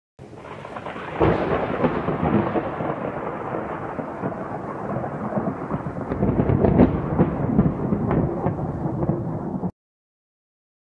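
Thunder sound effect: a sharp crack about a second in, then a long rolling rumble that cuts off suddenly near the end.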